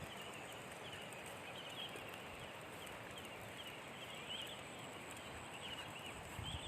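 Quiet outdoor ambience with birds chirping: many short high chirps over a steady hiss and a faint steady high tone.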